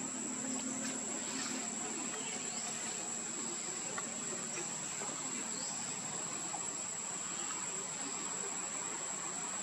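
A steady, high-pitched insect chorus, one even buzz that holds without a break, with a few short high chirps over it.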